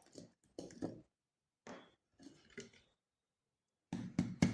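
A few faint clicks and knocks from something small being handled, with near-silent gaps between them; no motor is running.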